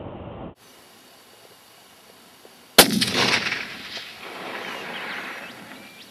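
A single high-powered hunting rifle shot about three seconds in, followed by a long echo that fades over about a second.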